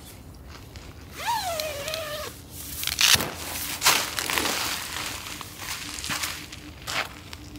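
A single animal call about a second long, sliding down in pitch, followed by a run of short rustling noises.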